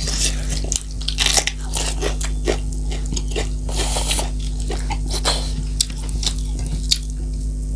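Close-miked eating: a person biting and chewing a mouthful of food, with many short crunches and wet mouth clicks, over a steady low hum.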